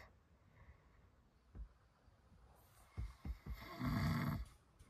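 A man snoring in his sleep: one deep, rough snore near the end, after a few faint soft knocks.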